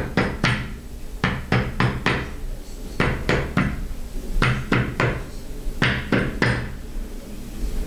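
Rubber mallet tapping a new dust seal down onto a Harley-Davidson 39 mm fork slider: about fifteen light, sharp knocks in uneven groups with short pauses, the seal being worked around its edge into place.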